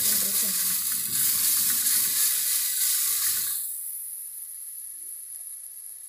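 Garlic clove frying in a thin film of hot oil in an aluminium pot, sizzling as it is stirred with a silicone spatula. The sizzle drops to a faint high hiss about three and a half seconds in.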